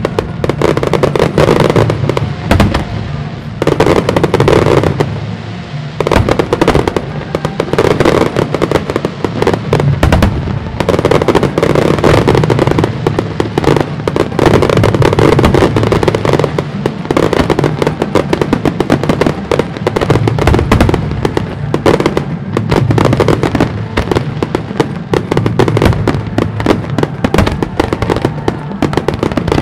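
A fireworks display with aerial shells bursting in a dense, rapid barrage of sharp bangs and crackle, and show music playing underneath.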